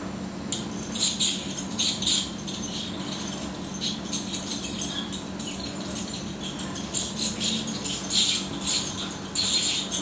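Irregular rustling and crackling from close handling, with gloved hands working over the dog's lips and fur, over a steady low hum.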